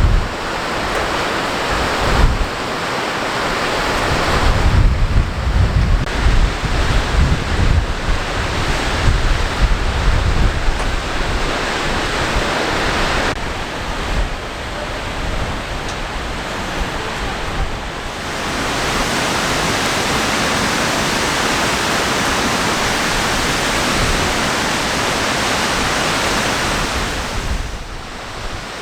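Skógafoss waterfall rushing steadily, with gusts of wind buffeting the microphone through roughly the first half.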